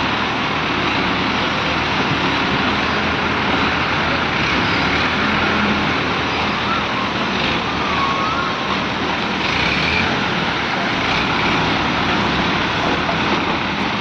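Diesel engines of ACE hydra cranes running steadily under load while they lift a tanker body, a dense continuous engine noise.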